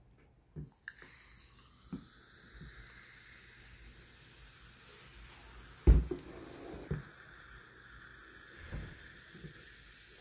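Cola poured from a plastic bottle into a glass over ice, splashing and fizzing steadily as the foam rises. A few soft knocks are heard, and a louder thump about six seconds in.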